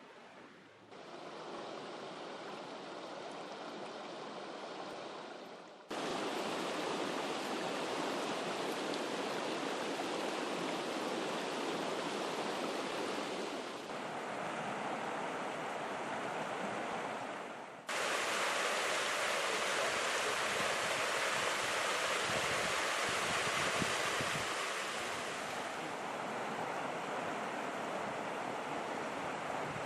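Rushing water: a steady, even wash of noise with no pitch, stepping abruptly louder about a second in, again about six seconds in, and again about eighteen seconds in.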